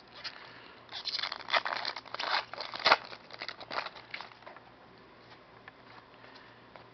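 Wrapper on 2011 Bowman baseball cards being torn open and crinkled by hand: a run of crackling, tearing sounds starting about a second in and dying away about four and a half seconds in, followed by a few faint ticks of handling.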